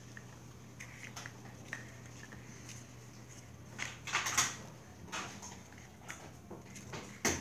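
Scattered rustling and light knocks of cardboard craft pieces being handled, with a louder rustle about four seconds in and a sharp click near the end.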